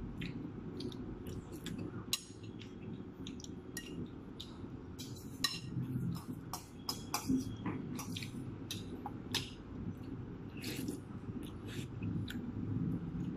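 Metal spoons clinking and scraping against a small metal bowl and a ceramic plate while people eat, in short irregular clicks over a steady low hum.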